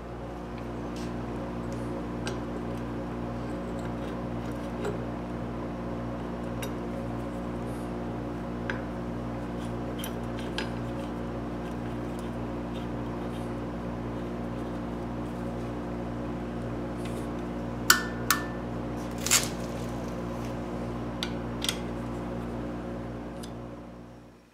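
An electric motor running with a steady hum, with a few light metallic clicks and taps in the last third; the hum fades out at the end.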